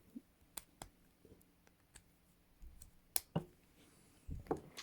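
Scattered small metal clicks from ASP Model 200 hinged handcuffs being handled, with a few sharp clicks; the loudest comes about three seconds in.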